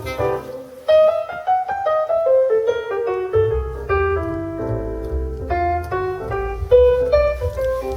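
Piano solo from a jazz trio recording, played through a Mercedes C-Class W205's Burmester surround sound system, with a deep bass line that comes in strongly about three seconds in.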